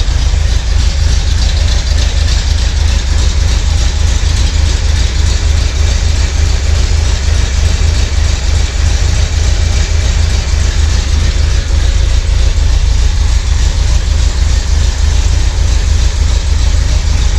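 1971 Corvette's V8 engine idling steadily as it gets warm.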